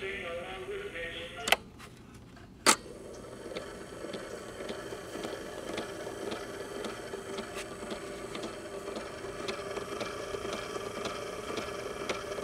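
Small portable reel-to-reel tape recorder playing back warbly, wavering audio, which stops at a sharp click about a second and a half in; a second click follows about a second later. After that the recorder's small drive motor and tape transport run with a steady hum and faint regular ticking.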